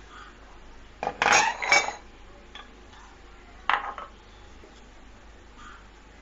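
Kitchenware clattering as ceramic bowls and a wooden rolling board are moved and set down on a counter: a cluster of knocks about a second in, then one sharp knock near four seconds.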